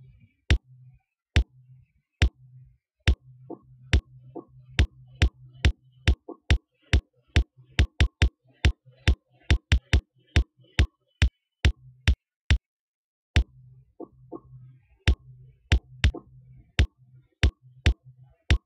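An acoustic bass drum sample (LMMS's bassdrum_acoustic01) loops as a step-sequencer pattern. The beat changes as steps are switched on and off: a sparse kick at first, busier in the middle, then sparser again near the end.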